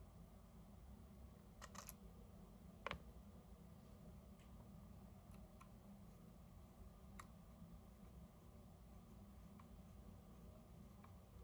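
Faint clicks and light taps of small screws and a tool being worked while fitting a laser sight to a pistol, with one sharper click about three seconds in, over quiet room tone.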